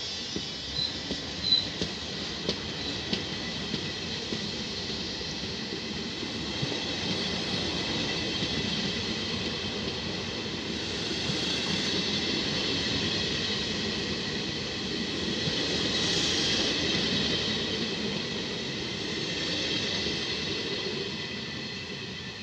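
Regional passenger train's coaches rolling past on the rails, with sharp wheel clicks over the rail joints in the first couple of seconds. Then comes a steady rumble with a thin high squeal, swelling twice, about 12 and 16 seconds in, and fading near the end as the rear cab car draws away.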